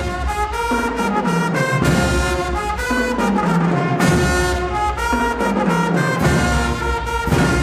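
Marching band's brass section (trumpets, mellophones, trombones and sousaphone) with an alto saxophone and drums playing a loud tune. The low horns play a stepwise falling line that repeats about three times.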